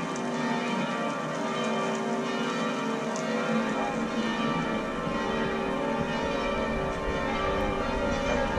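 Church bells ringing continuously, many bell tones overlapping into a dense wash, with a low rumble coming in about halfway through.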